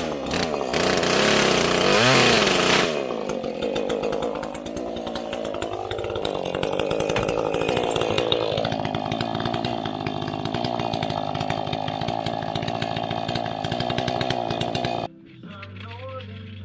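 Chainsaw engine running hard for the first few seconds, then wavering up and down in pitch before settling into a steady lower run. It cuts off suddenly near the end.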